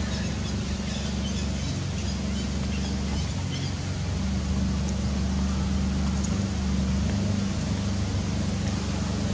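A steady low mechanical hum over constant background noise, with a few faint high ticks in the first few seconds.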